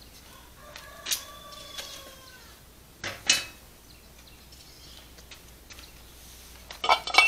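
A chicken calls once with a long arched cry about a second in. Sharp knocks from the hang glider cart's pins and frame parts being handled come about a second in, loudest about three seconds in, and again near the end.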